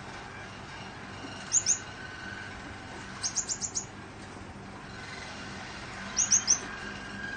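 Gouldian finches giving short, high, downward-sweeping chirps in quick clusters of two to five, over the steady noise of a fan.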